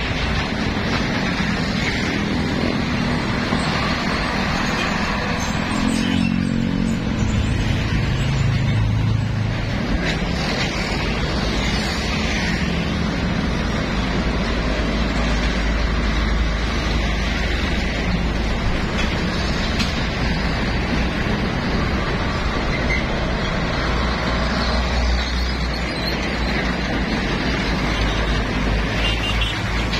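Heavy road traffic passing close by: diesel container trucks, cars and motorcycles, a steady rumble of engines and tyres on asphalt. A truck engine's low note stands out between about six and ten seconds in.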